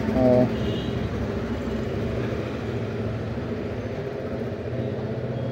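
Steady low rumble of vehicle noise in the background, with a short loud tone just after the start.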